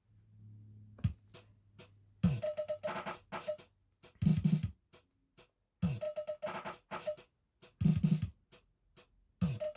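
Cheetah SpecDrum digital drum machine on a ZX Spectrum playing a looped beat of sampled kick, snare and other drum sounds. The pattern starts about two seconds in, after a faint low hum, and repeats about every three and a half seconds.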